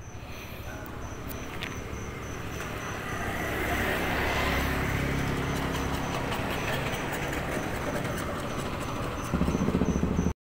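A motor vehicle's engine running nearby: a steady low hum that grows louder over the first few seconds, then holds, and steps up again near the end. A faint high tone pulses a few times a second behind it.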